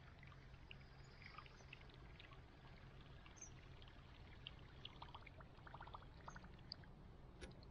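Faint gurgling and splashing of a 4-inch Whopper Plopper topwater lure, its spinning tail churning the surface of calm water as it is reeled in. The small splashes come quicker and more densely about five seconds in.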